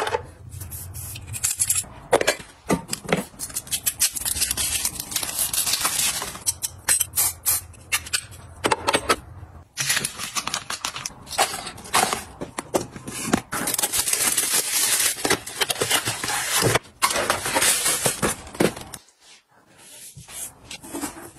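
Close-up handling sounds: plastic bottles and containers clicking and knocking as they are set into a clear acrylic organizer, then the papery rustle and taps of sheet-mask packets being sorted on a stone counter. Quieter for a moment near the end.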